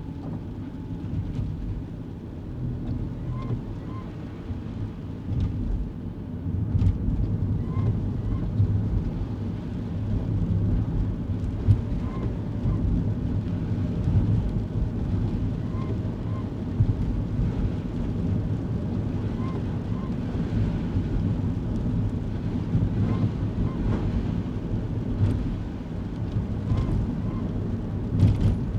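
Kei car driving on a wet road, heard from inside the cabin: steady engine and tyre rumble with scattered small knocks, and a faint short chirp repeating about once a second.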